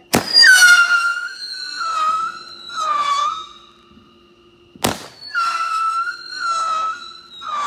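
A 'Siren's Call' whistling firework going off twice: each shot is a sharp bang followed by three wavering whistle wails that sag in pitch, meant to sound like a siren.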